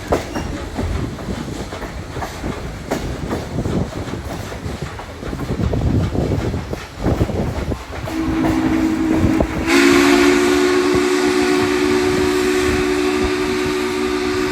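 Steam excursion train rolling, with rumble and clicks of the wheels over the rail joints; about eight seconds in, the 2-6-6-2 Mallet locomotive No. 1309's steam whistle starts softly and then sounds loud, a steady two-note chord held to the end.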